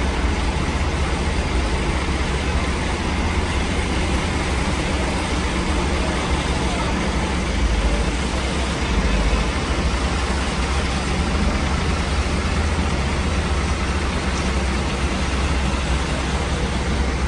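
Large bus diesel engines running with a steady low rumble as a coach pulls slowly away.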